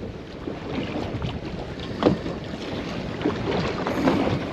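Water sloshing against a fishing boat's hull, with wind buffeting the microphone. A few sharp knocks come through, the loudest about two seconds in.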